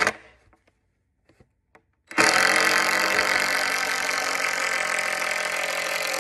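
Cordless drill driving a screw into a wooden framing board: a steady motor whine that starts about two seconds in and holds for about four seconds.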